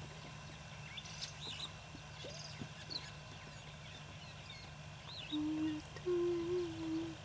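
Birds chirping faintly with scattered short calls over a steady low hum. Near the end come two held low notes, one short and one longer.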